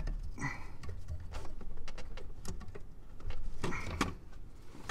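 A flathead screwdriver prying and scraping against the front sway bar and its bushing bracket, making an irregular run of small metal clicks and taps as the bar is worked loose.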